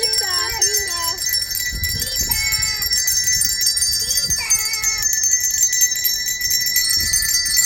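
Several handheld bells shaken and ringing together at different pitches, a dense, continuous jingling ring.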